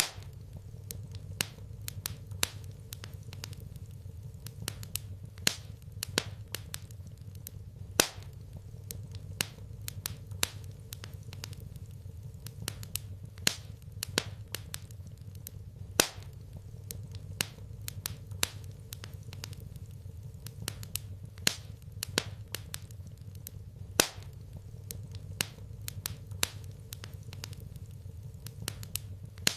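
Wood fire crackling in a fireplace: irregular sharp pops and snaps, a few much louder than the rest, over a low steady rumble.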